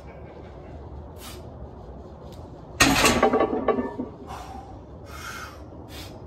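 Trap bar loaded to 750 lb being deadlifted for reps: about three seconds in the plates come down to the ground with a loud clank and rattle that lasts about a second, with short, forceful breaths between reps.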